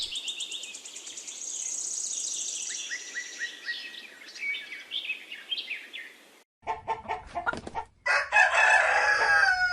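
Small birds chirping and twittering for about six seconds. After a sudden cut, a chicken clucks and a rooster crows, its call falling in pitch, near the end.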